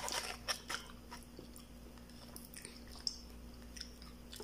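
Quiet eating sounds: a person chewing food, with a short run of crackles in the first second as a hand reaches into a paper food wrapper for a potato wedge, then scattered small clicks.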